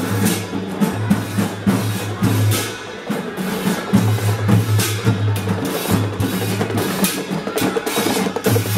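Procession drums and cymbals playing a steady beat, struck roughly twice a second, over a low droning tone that cuts in and out.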